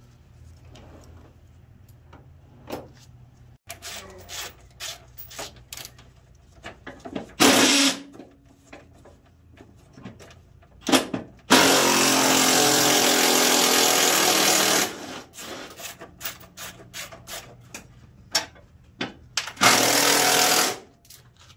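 A power tool runs in bursts while car parts are taken apart: a short burst about seven seconds in, a steady run of about three seconds near the middle, and another short burst near the end. Between them come many light clicks and knocks of tools and parts.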